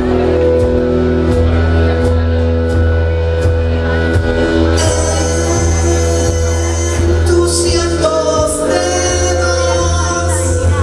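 Live band playing a song: held bass notes and keyboard chords over a steady light beat, with a woman singing. A brighter, shimmering high layer joins about halfway through.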